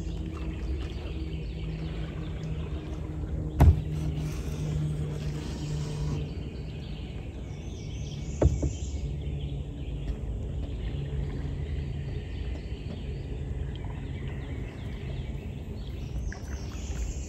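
Outdoor swamp-forest ambience: a steady low rumble with a faint hum under scattered bird and insect chirps. Two sharp knocks stand out, one a few seconds in and another about five seconds later.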